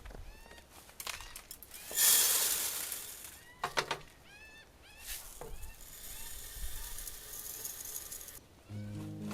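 Water pouring and splashing, in a loud stretch of hiss early on and a weaker, longer run later, as clothes are washed. Short chirps from small birds repeat throughout. Music starts near the end.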